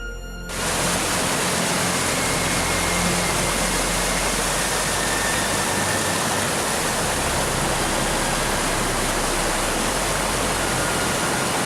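Mountain torrent rushing, a loud, steady wash of water noise that begins about half a second in and cuts off abruptly at the end.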